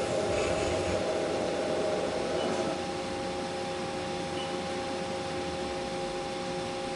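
Machine tool running steadily: an even hiss with a steady whine of several tones, easing a little in level about three seconds in.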